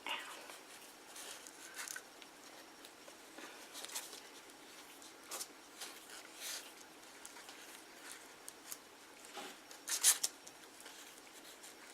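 Soft, scattered rustling and scratching as hands handle and wrap craft materials, with a louder rustle about ten seconds in.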